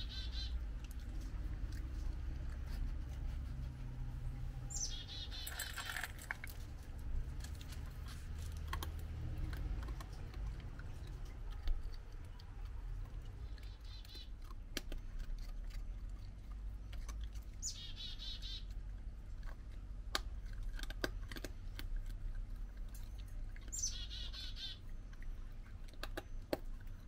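A small songbird singing a short song that drops in pitch into a buzzy trill, several times a few seconds apart. Between the songs come scattered sharp clicks and crunches of a raccoon chewing dry dog kibble, over a steady low rumble.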